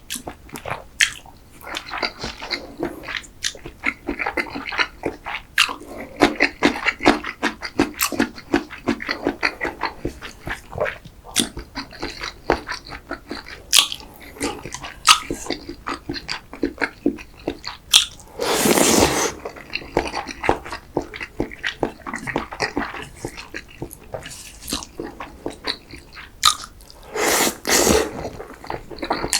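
Close-miked eating of creamy pasta and risotto: wet chewing and mouth clicks throughout, with two louder, longer slurps, one just before the middle and one near the end.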